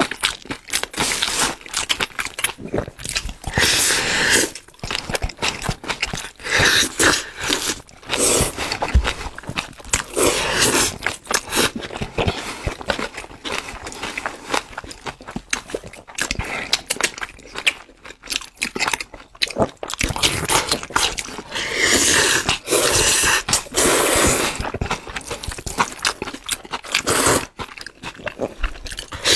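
Mouth sounds of people eating: irregular wet chewing, biting and smacking, with noodles being slurped near the end.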